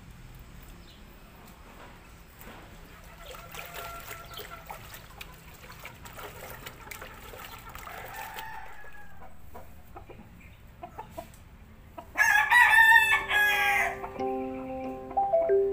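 Faint splashing and dripping of hands working water in a plastic basin, with faint distant rooster calls, then a rooster crows loudly for about two seconds near the end.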